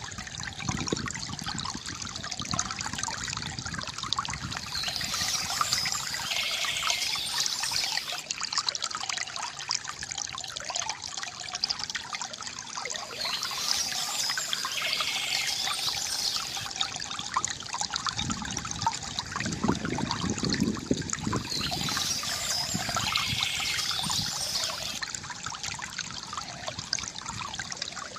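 Water trickling and splashing steadily from a bamboo fountain, with fuller splashes now and then.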